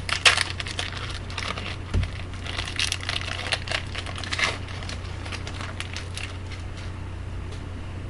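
Hockey card pack wrapper being torn open and crinkled by hand, with dense crackling that eases off after about six seconds. A steady low hum runs underneath.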